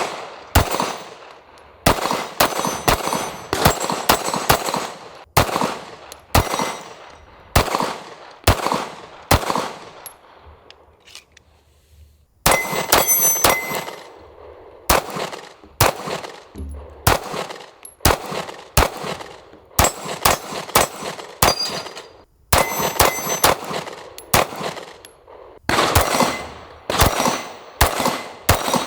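Springfield Armory Prodigy Compact 9mm pistol fired in quick strings of shots, roughly two to three a second, with a short pause about ten seconds in before firing resumes. Some shots are followed by a brief metallic ringing.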